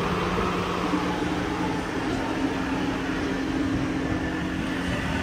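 Steady low mechanical hum, two constant tones over a noisy background haze, keeping an even level throughout.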